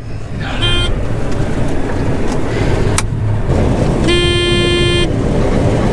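John Deere 9500 combine running loud and steady once it is fired up, with a short beep about half a second in and a steady horn-like tone lasting about a second, starting about four seconds in.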